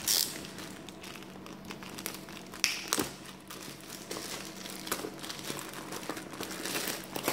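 Plastic shipping packaging crinkling and rustling as a parcel is handled and opened by hand, in irregular bursts with louder handling near the start, about three seconds in, and near the end.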